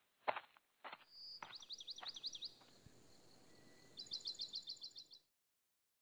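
Two short thuds in the first second, then a small songbird singing: a run of quick down-slurred chirps, and near the end a fast trill of high notes that cuts off abruptly about five seconds in.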